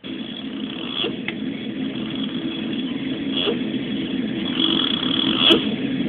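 A young child snoring in sleep: a few soft snores about every two seconds, over a steady low rumble.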